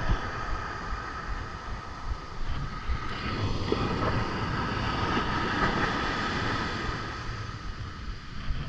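Wind buffeting the microphone in irregular low gusts over the steady wash of surf breaking on a sandy beach.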